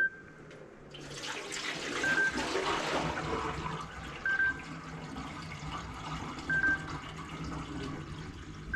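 Water running and splashing in a kitchen sink, with a short high beep about every two seconds.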